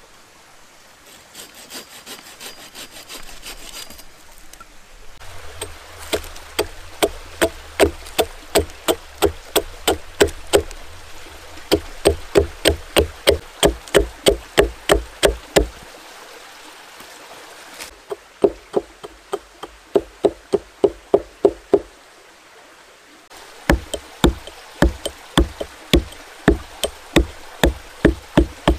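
Hatchet chopping and shaving a wooden stake on a stump: short, sharp wood-on-wood chops in runs of a few seconds, about two to three a second, with brief pauses between runs. This is the point being sharpened and a hook notch being cut into the stake.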